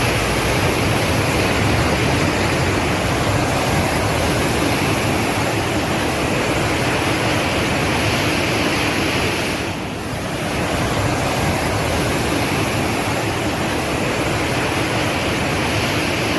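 Steady, loud rushing of stormwater, with a short dip in level about ten seconds in.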